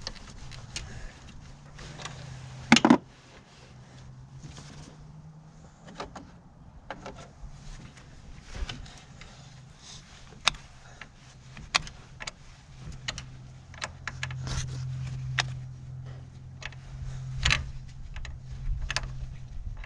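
Irregular metallic clicks and taps of hand tools on a car battery terminal clamp being refitted and tightened, with one sharp knock about three seconds in. A low hum comes and goes underneath.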